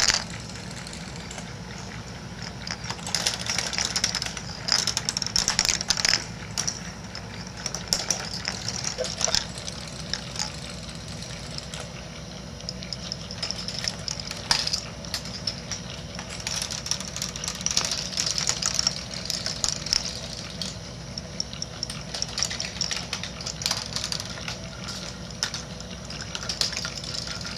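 A large K'nex ball machine running: the motor-driven gears hum steadily while plastic balls roll and clatter through the plastic rods and connectors, giving constant clicks and knocks. A faint steady whine joins about a third of the way in.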